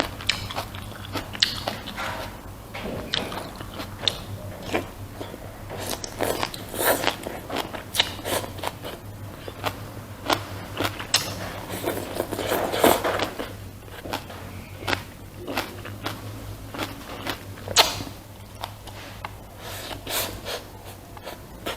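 A person eating close to the microphone: irregular bites, chewing and crunchy mouth sounds, with a steady low hum underneath.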